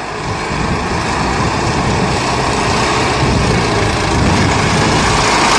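Tractor engine running as it drives up close, growing steadily louder.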